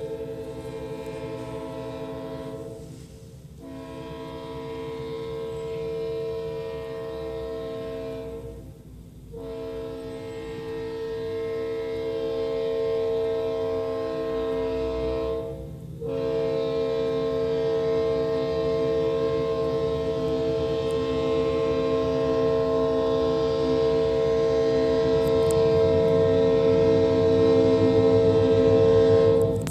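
Kansas City Southern freight locomotive air horn sounding a chord in long blasts with short breaks about 3, 9 and 16 seconds in, the last blast held longest and growing louder as the train draws near, cutting off just before the end.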